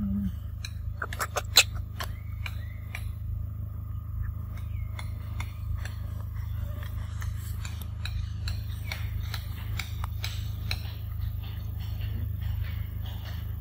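Macaque biting and chewing a ripe mango, with many small wet clicks and smacks scattered throughout, over a steady low rumble.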